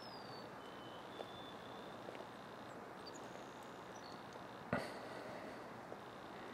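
Steady outdoor background noise with a few faint, short, high chirps, broken about three-quarters of the way through by a single sharp knock, the loudest sound.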